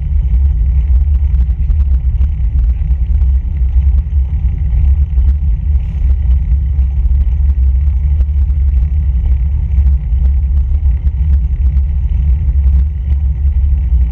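Road bicycle rolling on asphalt, heard through a handlebar-mounted camera: a steady, loud low rumble of wind buffeting the microphone and road vibration.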